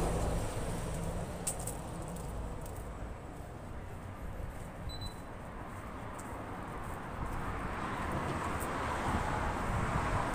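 Street traffic: a passing vehicle fades away over the first few seconds, and traffic noise swells again toward the end.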